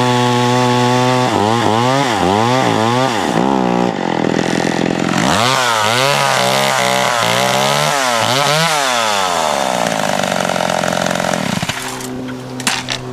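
Small vintage two-stroke chainsaw cutting into a stump, its engine pitch repeatedly rising and falling as the chain loads and frees in the wood. It then winds down in one long falling note and settles back to a steady lower speed, with a few sharp clicks near the end. The owner says this saw runs lean because its carburetor fuel-pump diaphragm is wearing out.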